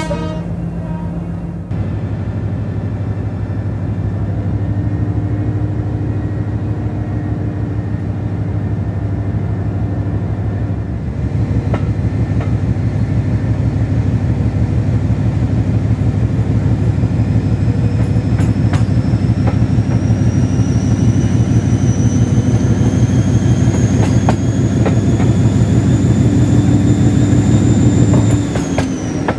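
Class 56 locomotive's Ruston Paxman diesel engine under power as the train accelerates: a low throbbing note that comes in about two seconds in and steps louder around the middle, with a high-pitched whine rising slowly in pitch through the second half and rail-joint clicks. Near the end the whine and engine note drop away suddenly as power comes off.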